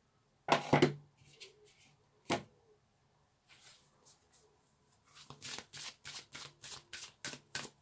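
Work Your Light oracle cards being handled on a tabletop: a few sharp slaps of cards in the first two and a half seconds, then from about five seconds in a quick run of shuffling strokes, three to four a second.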